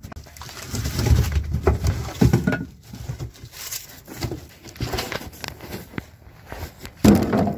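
Irregular knocking, rustling and heavy microphone handling noise as goats rummage in a metal wheelbarrow of split firewood and the camera is swung about, with a louder burst near the end.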